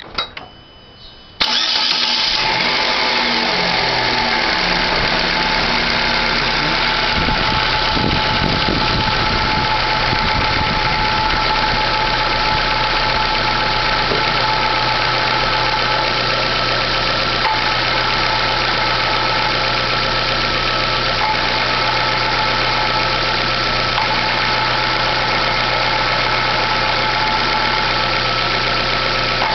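Chevrolet Classic's engine starts about a second in and then idles steadily. Over the idle runs a steady high whine: the clutch noise that the owner says goes away with the clutch pedal pressed and comes back when it is released, and that persists after the clutch release bearing was replaced.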